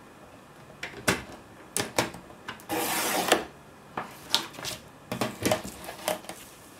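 Paper trimmer's cutting blade pushed along its track, slicing through designer paper with a loud scraping swish of about half a second, about three seconds in. Before and after it come sharp clicks and knocks from the trimmer and the paper being handled.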